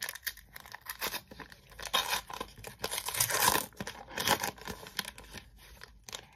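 Shiny foil wrapper of a Match Attax trading-card pack being torn open and crinkled in the hands: a run of sharp rips and crackles, loudest a little past three seconds in.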